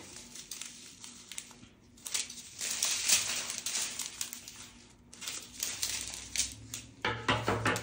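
Strips of small plastic bags of diamond-painting drills crinkling and rustling as they are handled, in uneven bursts with fine crackles.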